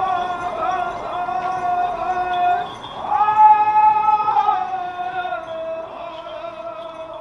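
A high-pitched voice singing long held notes in two phrases. Each phrase starts high and slides down in pitch, the second about three seconds in.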